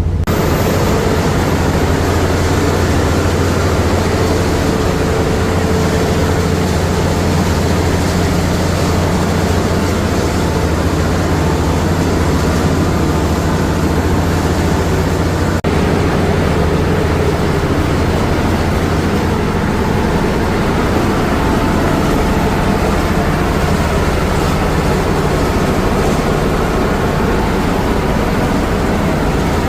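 Motorboat engine running steadily at cruising speed, with a low drone under a constant rush of water and wind noise, heard from aboard the boat.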